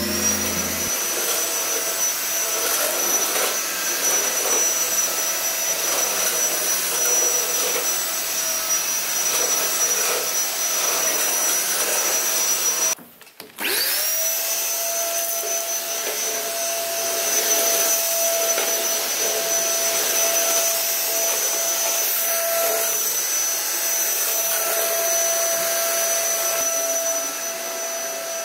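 Vacuum cleaner motor running with a steady high whine. About halfway through it cuts out briefly, then starts again, its whine rising as the motor spins up.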